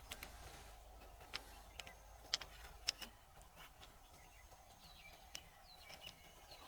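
Faint, scattered sharp clicks over a quiet background, with a few short faint bird chirps about two-thirds of the way through.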